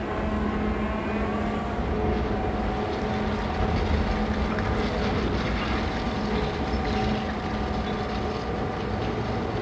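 Construction-site machinery running steadily: the engines of a crawler excavator digging and a dump truck being loaded, one continuous mechanical hum with a few steady tones.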